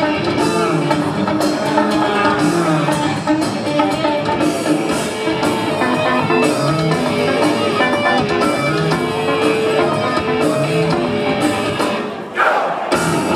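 Rock band playing live: a busy electric bass line with electric guitar and drum kit. The sound drops briefly near the end, then the full band comes straight back in.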